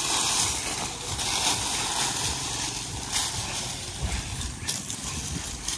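Dry corn stalks and leaves rustling and crackling as they are handled and gathered into bundles, with an uneven low rumble of wind on the microphone.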